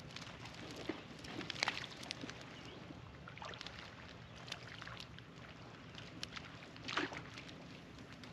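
Light scattered splashes and plops on calm water from small fish breaking the surface, with two louder splashes about one and a half seconds in and near seven seconds, over a low steady hum.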